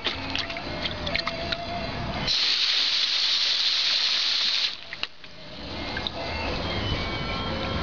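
Garden hose spray nozzle jetting water into a plastic kiddie pool: a loud, steady hiss that starts suddenly about two seconds in and cuts off sharply a couple of seconds later.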